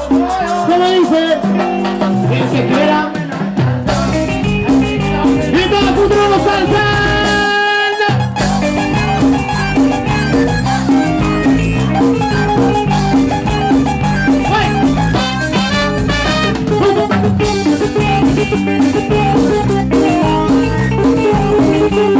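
Live cumbia band playing loud amplified dance music with electric guitar and drum kit. The bass comes in about four seconds in, and there is a brief break near eight seconds.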